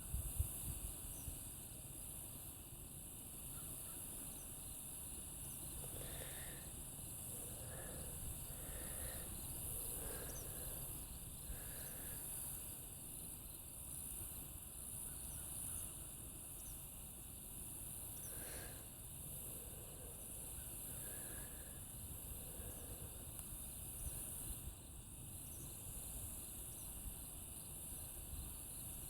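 Steady high-pitched chorus of crickets and other insects, with a few short, fainter calls at intervals of about a second between six and twelve seconds in and a few more later.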